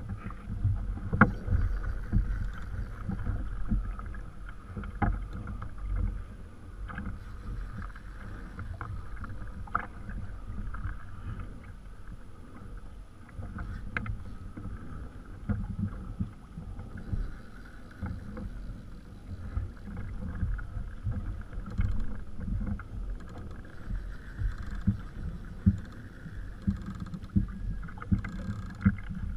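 Small waves slapping against a kayak hull: an uneven low rumble with scattered sharp knocks.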